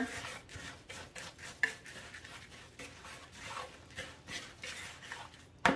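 Whisk stirring dry flour and rolled oats in a large mixing bowl: a run of soft, irregular scraping strokes. A louder knock comes near the end.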